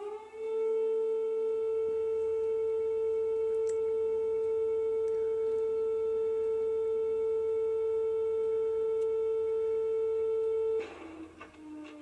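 Civil defence siren that finishes rising in pitch just after the start, then holds one steady wailing tone for about ten seconds. It cuts off sharply near the end, leaving fainter tones that slide down in pitch.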